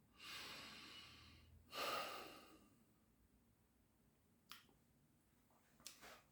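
A man breathing between sung lines: one long breath, then a louder second one, followed by a faint click about four and a half seconds in.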